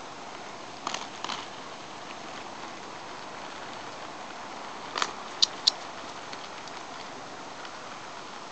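A steady rushing noise, with a few sharp clicks: two about a second in and three close together around five seconds in.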